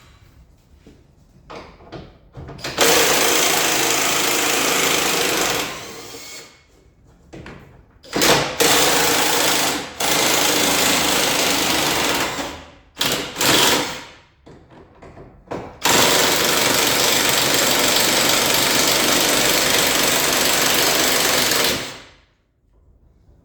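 Impact wrench hammering out the front bolts of an engine/gearbox mount. It runs in about five bursts, the last and longest lasting about six seconds.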